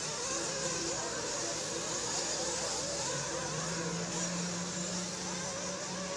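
Several 1/8-scale nitro RC buggies' small two-stroke glow engines running together, their high-pitched whine rising and falling as the cars throttle on and off.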